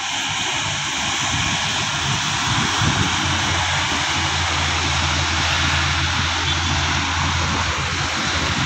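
Highway traffic with heavy diesel trucks passing: a steady rush of engine and tyre noise, with a truck engine's low drone growing stronger about three seconds in.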